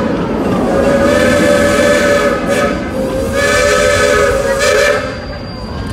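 Steam locomotive chime whistle of the Cedar Point and Lake Erie Railroad blowing two long blasts, several notes sounding together. Short hisses come near the end of each blast, and the tail of an earlier blast ends right at the start.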